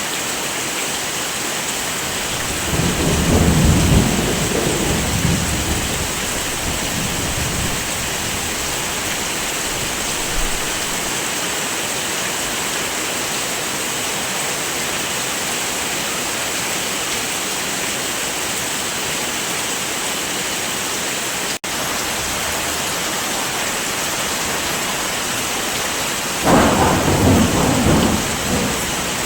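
Heavy rain falling with a steady hiss. Two rolls of thunder rumble over it: one about three seconds in that lasts a few seconds, and another near the end.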